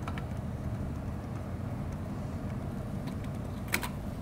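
Quiet handling of a panel module: a screwdriver and fingers working on its screws and metal frame, with a faint click just after the start and a couple of light clicks near the end over a steady low hum.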